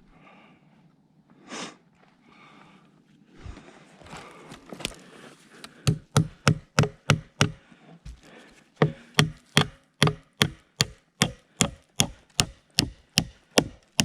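Hammer blows: a long run of sharp, regular strikes, about three a second, starting about halfway through, with a short break before they resume. Before that, a few scattered knocks and rustling.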